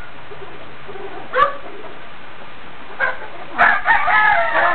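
Rooster crowing: a long, multi-part crow that starts about three and a half seconds in, after a couple of short, falling chicken calls.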